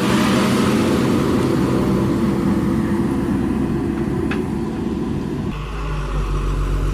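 Diesel engine of a JCB 3DX backhoe loader running steadily. About five and a half seconds in, the engine note shifts lower and deeper. A brief high squeak comes about four seconds in.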